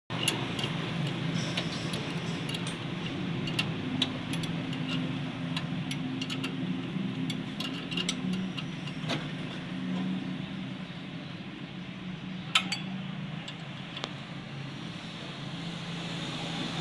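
Workshop sounds: metal tools and parts clinking now and then over a steady low hum, with one louder clink about three-quarters of the way through.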